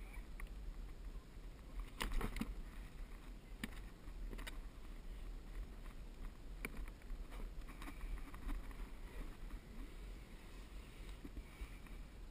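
Small knocks and water lapping against the hull of a sit-on-top kayak as it drifts, over a low steady rumble; a cluster of knocks about two seconds in is the loudest, with a few single knocks after.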